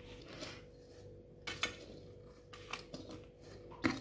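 A few light knocks and scrapes of a spoon on steel cookware, about a second apart, as sticky poha-and-jaggery chikki mixture is turned out onto a greased steel plate.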